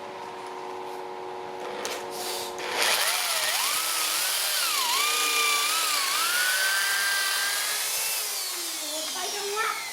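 A power tool motor running, then working into wood about three seconds in with a loud hiss and a whine that wavers in pitch as the load changes. Near the end it winds down with a falling pitch.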